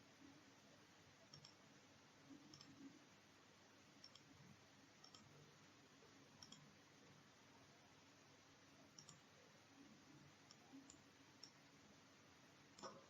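Faint computer mouse clicks at irregular intervals, about one a second, over low room hiss; the loudest click comes near the end.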